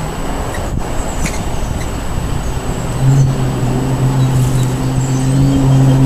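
Motor vehicle engine nearby: a low rumble, then about halfway through a steady low engine hum sets in and grows slightly louder.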